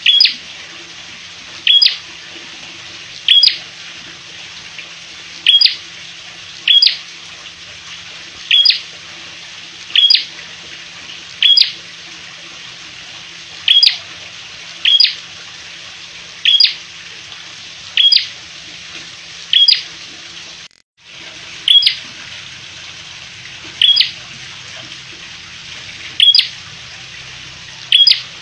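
Caged tailorbird (prenjak) giving short, sharp, high-pitched calls about every second and a half, over a steady background hiss. The calls break for a moment about three-quarters of the way through.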